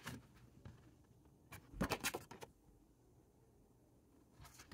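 A sheet of paper handled and turned over: a few short rustles and crinkles, the loudest a quick cluster about two seconds in, with quiet room tone between.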